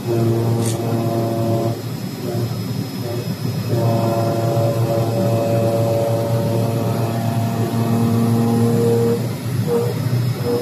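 Multi-layer fabric CNC cutting machine running: a steady low hum with a motor whine on top. The whine comes in long stretches and breaks off for about two seconds soon after the start and again near the end.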